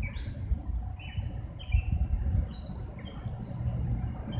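Small birds chirping: short, high calls scattered through, over a low rumble.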